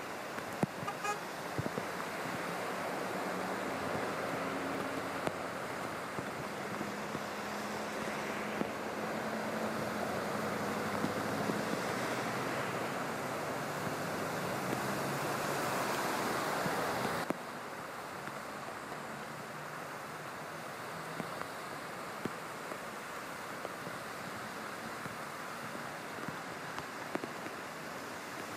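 Cars and trucks ploughing through deep flood water on a freeway: a continuous rushing splash of water spray mixed with traffic noise. It cuts off abruptly about two-thirds of the way through to a quieter, steady wash of water and traffic.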